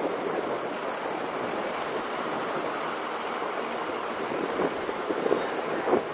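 Wind rushing over the microphone of a bicycle-mounted camera while riding, a steady noisy rush, with a few short bumps in the second half.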